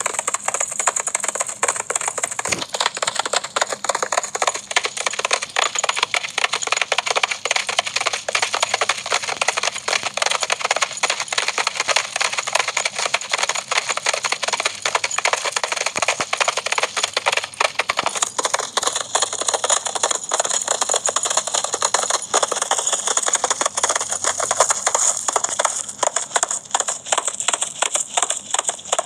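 Many horses' hooves galloping together in a dense, continuous clatter of rapid hoofbeats.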